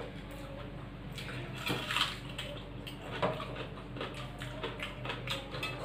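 Eating rice and curry by hand from steel plates: soft wet squishing as fingers mix the rice, with small clicks against the metal. A steady low hum runs underneath.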